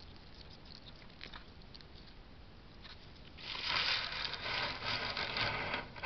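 A hedgehog's spines rubbing and scraping against a metal plant frame as it pushes past: a few faint clicks, then a loud scratchy rubbing that starts about three seconds in and lasts nearly three seconds.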